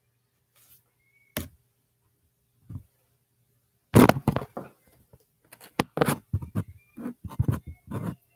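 Handling noise from a hand working the computer right by its built-in microphone: a sharp click, a faint one, then a quick irregular run of knocks, taps and sleeve rubbing for about four seconds.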